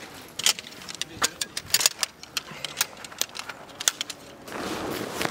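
Irregular sharp clinks and knocks of metal camping gear being handled and struck together, then a steady rustling from about four and a half seconds in.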